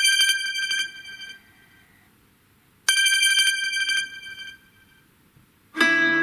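Samsung Galaxy S21 Ultra ringtone: a high, bright ring made of fast repeated strokes, like a telephone bell, sounding twice about three seconds apart, each ring dying away over about a second and a half. Near the end the next ringtone starts with lower notes.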